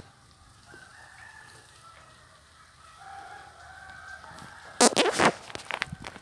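A rooster crowing faintly, then two bursts of loud rustling on the microphone near the end as the phone is moved.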